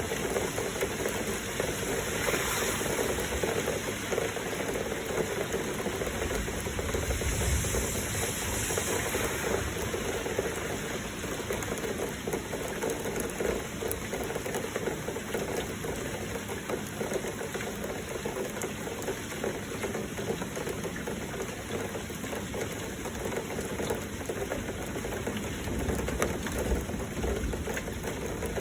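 Heavy rain and flowing water: a steady, dense patter over a rushing hiss. The hiss swells briefly twice in the first third.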